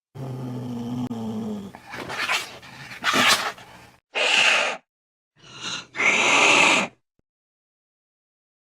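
Angry cat giving a low growl, then hissing and spitting in five short, sharp bursts.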